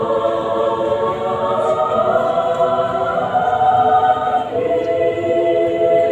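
A large women's choir singing long sustained chords together, moving to a new chord about four and a half seconds in.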